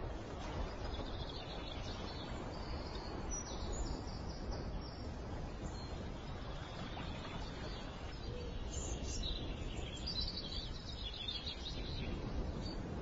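Steady rushing outdoor background noise, with faint high bird chirps in two spells: one starting about a second in, another from about nine seconds in.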